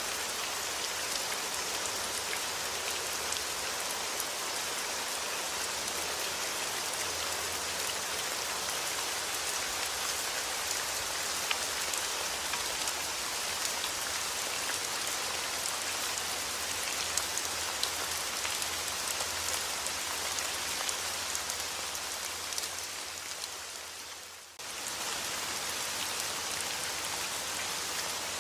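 Steady rain falling, a dense hiss with fine, separate drop ticks. Near the end it fades away for about a second and then cuts abruptly back in at full level.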